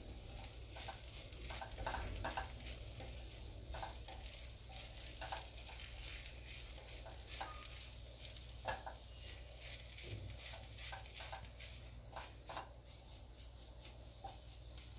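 Fresh fenugreek leaves frying in a little ghee in a nonstick pan, a faint steady sizzle, while a wooden spatula scrapes and turns them in short, irregular strokes.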